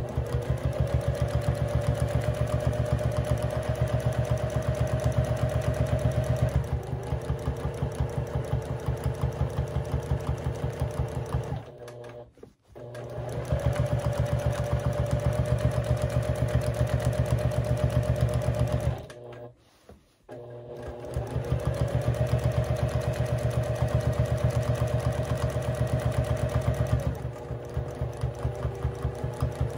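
Sewing machine free-motion quilting: the motor runs at speed with a fast, even needle clatter and a steady whine that climbs each time it starts. It stops twice for a second or so and slows down a couple of times.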